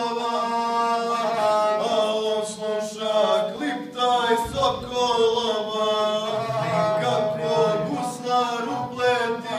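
A male guslar singing a Serbian epic song in a drawn-out, chanting voice while bowing the gusle, the single-string bowed fiddle, beneath it. The line moves in long held notes broken by short syllables.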